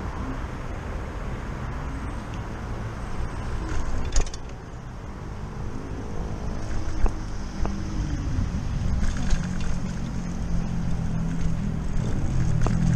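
Riding a Lime hire bike: steady rolling and wind noise on the bike-mounted microphone, with sharp knocks and rattles as it goes over bumps in the road and pavement, one about four seconds in. Road traffic is heard behind, louder in the second half.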